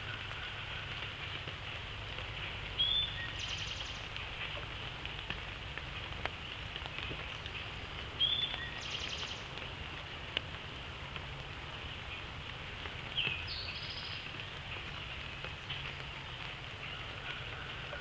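Wet woodland ambience: a steady hiss of rain with a low hum beneath. A songbird sings a short phrase three times, about every five seconds, each a quick rising note followed by a half-second buzz. A sharp drip or click comes once or twice.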